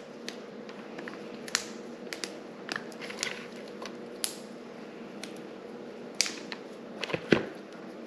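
Freshly picked rattlesnake green beans being snapped by hand: irregular crisp snaps, about a dozen, some louder than others, over a faint steady hum.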